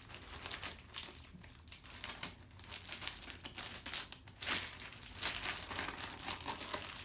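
Plastic bags and card sleeves crinkling and rustling as game pieces are handled, in irregular crackles, the loudest about four and a half and five seconds in.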